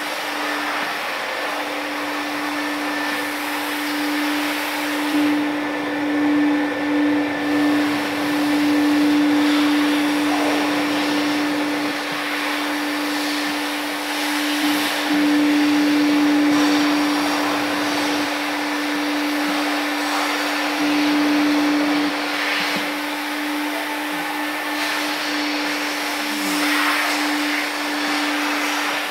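Vacuum machine running steadily: a constant motor hum under a rush of air, wavering in level a few seconds in.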